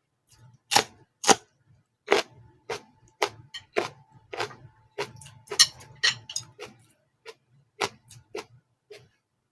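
Close-up eating sounds while chewing fried noodles: a string of irregular wet clicks and smacks from the mouth, about two a second.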